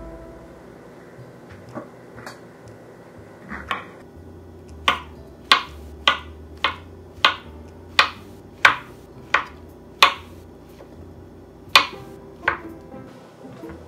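Kitchen knife chopping on a cutting board: a run of sharp, evenly spaced knocks, somewhat under two a second, for about five seconds, then two more strokes near the end.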